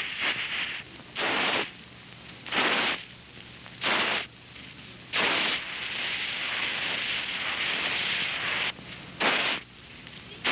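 Pine nuts rattling and sliding in a flat woven basket as it is shaken and tossed: a rushing rattle with each toss, about every second and a half, and a longer stretch of steady rattling in the middle.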